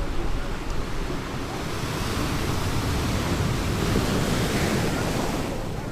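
Sea surf washing onto the beach, a hiss that swells about one and a half seconds in and fades near the end, with wind rumbling on the microphone.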